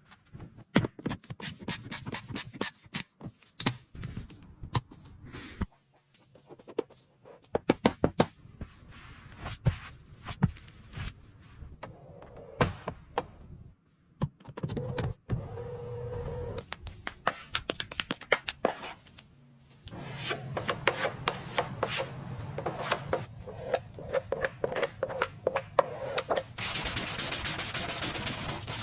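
Hand work with tools: irregular sharp knocks, taps and clatter with stretches of scraping and rubbing, and a steady hiss near the end.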